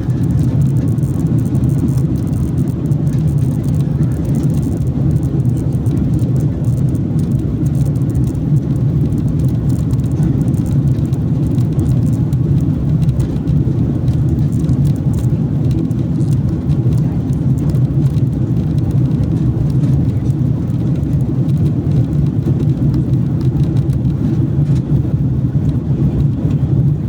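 Steady, loud cabin noise of an airliner in flight: the even drone of the jet engines and airflow heard from inside the passenger cabin, with most of its weight low and no change in pitch.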